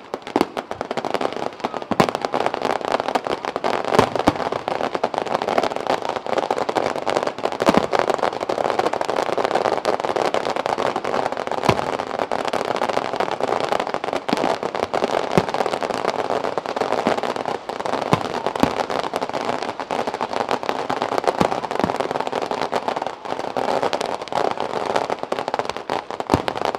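Aerial fireworks display: a dense, steady crackling of bursting shells, broken by sharp bangs every second or few.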